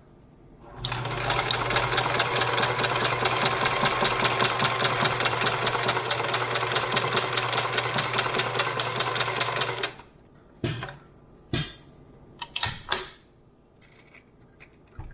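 Electric sewing machine running at a steady speed for about nine seconds, its needle stitching in a fast, even rhythm over a constant motor hum, then stopping abruptly. A few short clicks and knocks follow.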